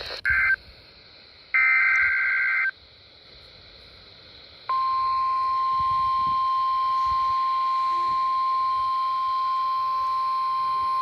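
Emergency Alert System alert tones: two short bursts of harsh two-pitch digital SAME data screech, then after a short pause a single steady NOAA Weather Radio warning alarm tone held for about seven seconds, announcing a new warning.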